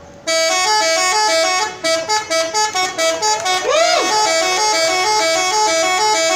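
Indonesian 'telolet' multi-tone bus air horn playing a fast melody, its notes switching about four times a second in a repeating pattern, with one brief rising-and-falling glide a little past the middle.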